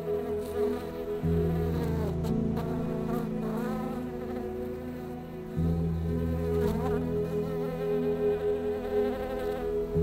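A honeybee buzzing with its wings in flight close by, a steady drone whose pitch wavers up and down now and then.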